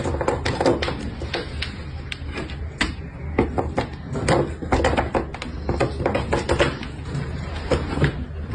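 A cat's paws patting and tapping at a plastic fridge magnet, giving irregular light taps and clicks against the fridge door, several a second, over a steady low hum.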